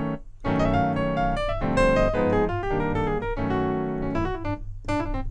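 Sampled piano patch on a Yamaha Montage M keyboard played as a string of chords and fills, with a short gap about a third of a second in.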